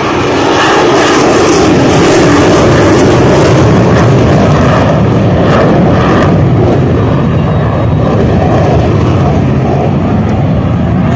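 Fighter jet passing overhead. Its engine noise swells about half a second in, stays loud for a few seconds, then slowly fades as the jet draws away.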